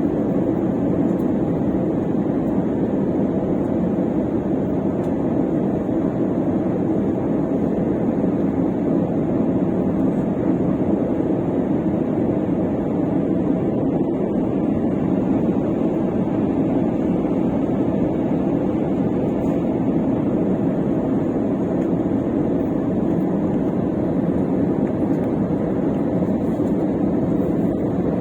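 Steady drone of an airliner's jet engines and rushing air heard inside the passenger cabin on approach, an even low rumble that does not change.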